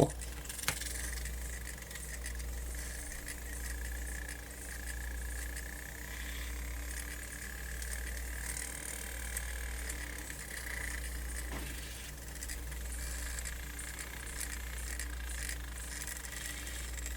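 Sony MZ-N420D MiniDisc Walkman's disc mechanism running but unable to spin the disc properly: a faint steady high whine with a low rumble that swells about once a second. It sounds horrible, the sign of a jammed or struggling spindle drive.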